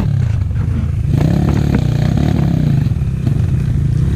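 Kovi Lite 250 dirt bike engine running, its pitch rising and falling with the throttle, with a few light clatters.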